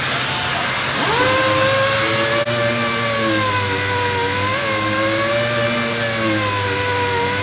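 Robot-mounted random orbital sander spinning up about a second in, then running with a whine that wavers slightly in pitch as the pad works across a cabinet door. Under it runs the steady rush of a Eurovac dust-extraction vacuum drawing through the sander's hose.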